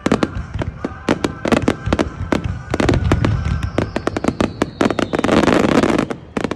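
Aerial firework shells bursting in a rapid, dense barrage of bangs, a starmine display fired shot after shot. About five seconds in, the bangs merge into a thick, continuous rush. The sound cuts off abruptly near the end.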